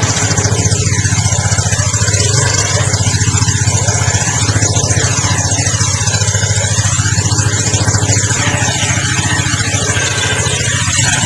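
Yamaha FZ25's 249 cc single-cylinder engine idling steadily through its stock exhaust, with an even low pitch and no revving.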